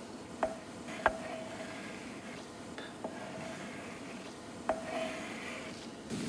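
Chopped herbs scraped off a wooden cutting board with a wooden spatula into a copper pot, with four sharp knocks against the pot, each followed by a short ring.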